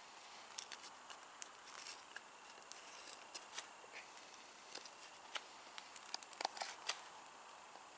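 Hand carving tool cutting into a block of wood to start a bowl: faint, irregular sharp cuts and scrapes, coming quicker near the end.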